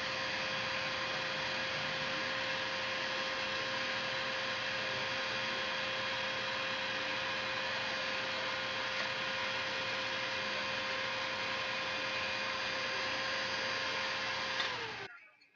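A steady electric whirring hum with a few fixed tones, like a small motor and fan running. About fifteen seconds in it is switched off and winds down, its pitch dropping as it stops.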